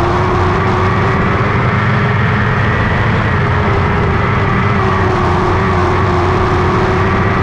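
A lightning sprint car's engine running loud at high revs on a dirt track. Its pitch climbs briefly at the start, then holds fairly steady with small rises and dips, as under throttle around the oval.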